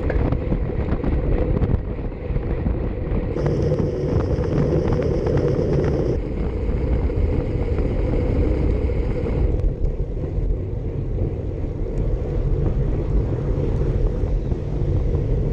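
Wind rushing over a bicycle-mounted action camera's microphone while riding a road bike at speed: a steady low rush of noise.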